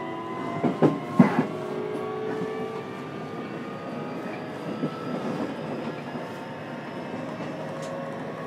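Onboard running sound of a JR Kyushu 303 series electric train, heard inside motor car MoHa 303-103. The inverter and traction motors give several tones that rise slowly as the train picks up speed, over steady wheel and rail noise. A couple of loud wheel clacks come about a second in.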